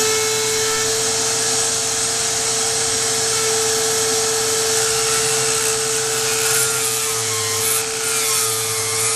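A power cutting tool running steadily as it cuts wood out of a rifle stock's inletting, with a vacuum running alongside to pull away the chips. It is a steady high hum over a constant rushing noise, and the hum wavers a little near the end.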